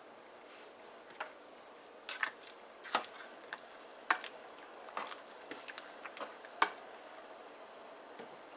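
A spoon stirring milk and pieces of dough in a stainless steel pot, knocking lightly against the pot again and again between about one and seven seconds in.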